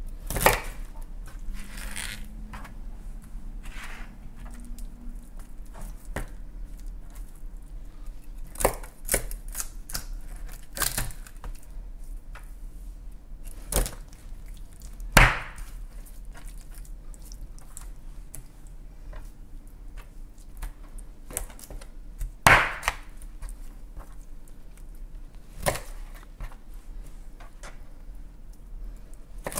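Knife cutting salmon head pieces on a cutting board: irregular sharp knocks of the blade striking the board and cracking through bone, a few much louder than the rest, spaced several seconds apart, with quieter slicing and handling in between.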